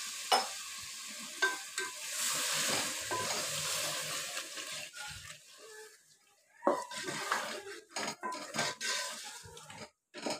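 Water poured into a hot aluminium pot of spiced mutton masala, with a steady hiss for about five seconds. Then a spatula stirs the curry, scraping and knocking against the pot in a quick run of strokes.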